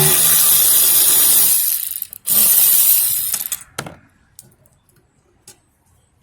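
Two long, loud hissing sprays: the first runs about two seconds, and the second starts after a brief break and fades out near the four-second mark. A few faint ticks follow.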